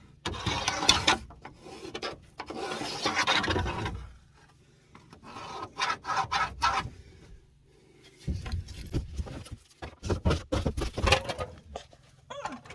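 Laminate flooring boards scraping and rubbing as they are slid and fitted into place, in three strokes. A run of light clicks and knocks follows in the last few seconds.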